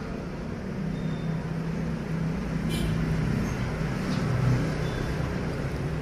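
Steady low engine-like rumble, swelling slightly partway through, with a few faint short high chirps from caged lovebirds.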